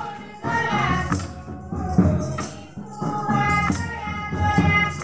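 Voices singing together over a drum beat and jingling, tambourine-like percussion: live dance music.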